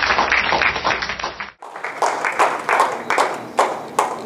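Audience applauding, with a brief cut about a second and a half in; the applause then continues and thins out to a few single claps near the end.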